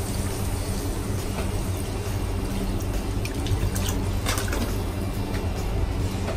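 Water poured from a plastic bottle into a frying pan of sautéed onions, a steady splashing pour that fills the pan with about four cups of water.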